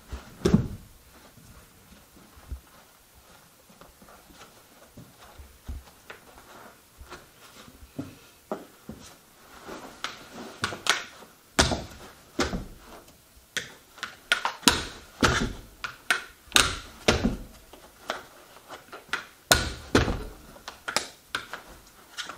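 A carpet knee kicker is bumped with the knee again and again, making a series of sharp thumps as the carpet is stretched flat to get the wrinkles out. The knocks are sparse at first, then come about one or two a second from about ten seconds in.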